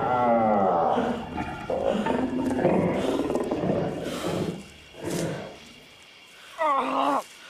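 A werewolf growling and snarling in an attack, loud and rough for the first four seconds or so. It opens on a cry that falls in pitch. After a quieter stretch, a short cry falling in pitch comes near the end.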